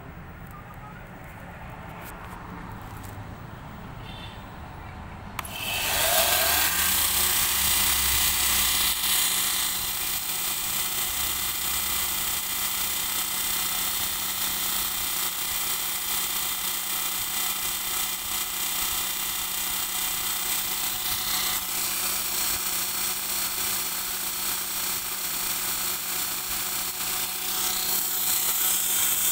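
Homemade belt grinder's electric motor switched on with a click about five seconds in, spinning up with a brief rising pitch, then running steadily with its abrasive sanding belt: a loud, even high whir.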